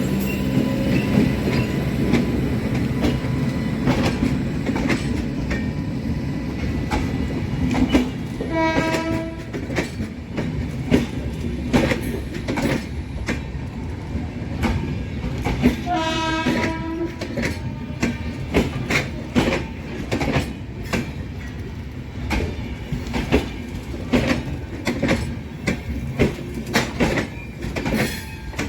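The 12980 Jaipur–Bandra Terminus Superfast Express running, its wheels clicking steadily over rail joints, while the horn sounds twice, each time for about a second, roughly 9 and 16 seconds in.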